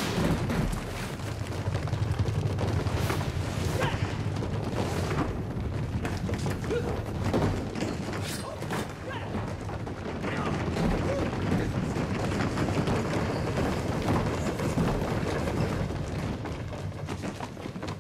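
A gang of men charging: many voices yelling over a dense low rumble of running feet, with scattered sharp hits. The din drops away right at the end.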